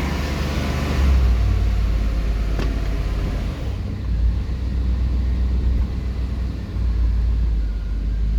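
1993 GMC Yukon's V8 running rough, a low rumble that surges and sags unevenly. The owner puts the poor running down to old stale fuel left in it over the winter.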